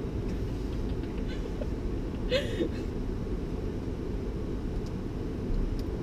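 Steady low rumble of a car's engine and tyres heard inside the cabin while it moves slowly, with a brief burst of voice about two and a half seconds in.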